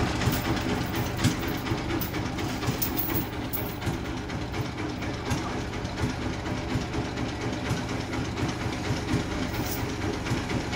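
Sawmill machinery of a large industrial bandsaw running steadily with a low hum and many small scattered clicks and knocks.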